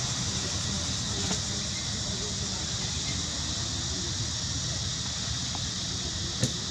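Steady outdoor background: an even high hiss over a low rumble, with a faint wavering sound in the middle range and one sharp click near the end.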